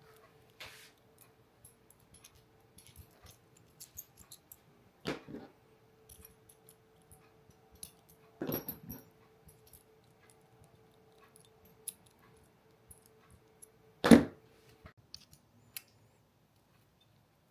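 Small clicks and light rattles of camera-rig gear being handled. Three louder knocks come about five, eight and a half and fourteen seconds in, the last the loudest. A faint steady hum runs underneath and stops about a second after the last knock.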